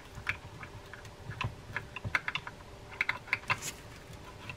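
Irregular light metal clicks and taps from handling the parts of a Penn 12/0 Senator trolling reel as its side plate is brought onto the frame, with a quick cluster of clicks about three seconds in.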